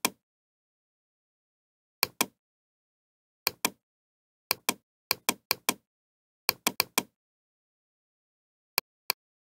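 Computer mouse buttons clicking, mostly in quick pairs of press and release, about ten times at irregular intervals with dead silence between.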